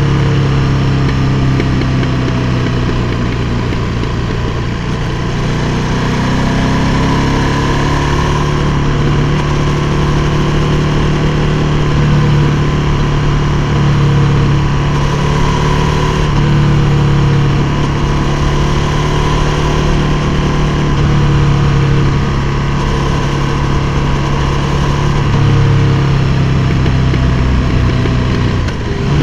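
KTM 1290 Super Duke R's V-twin engine running at a fairly steady speed while riding, with small rises and falls in pitch, over wind noise.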